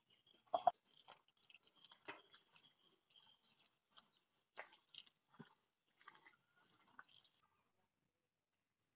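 Hand smearing wet mud plaster across a floor: irregular wet slaps, squelches and gritty scrapes, stopping about seven and a half seconds in.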